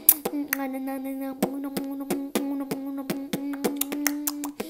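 Beatboxing: one person's mouth-made percussion, quick sharp clicks and hits several per second, over a steady hummed note that drops out near the end.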